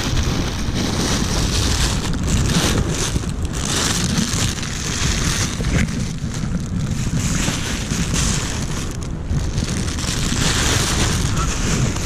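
Wind buffeting the microphone: a steady low rumble with a hiss above it that swells and fades.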